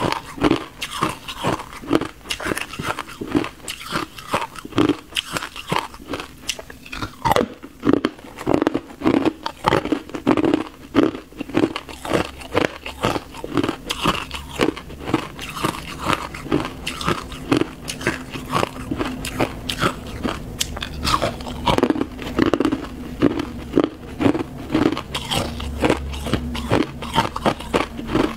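Hard clear ice being bitten and chewed close to a clip-on microphone: a continuous run of sharp crunches, several a second.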